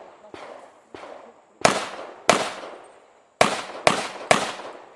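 Rapid .40 S&W pistol shots from a Rock Island Armory Pro Ultra Match HC 40 firing major-power-factor loads. Two fainter reports come in the first second, then a loud pair of shots, then three in quick succession about half a second apart. Each shot is followed by a long echoing decay.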